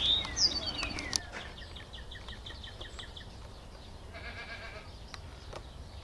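Young lambs bleating, one pitched call about four seconds in. A sharp, high call that falls in pitch comes first and is the loudest sound.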